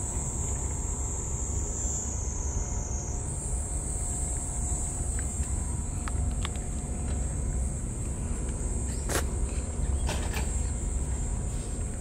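Insects droning steadily at a high pitch, the drone stepping up slightly in pitch about three seconds in, over a low outdoor rumble. A few faint clicks come in the second half.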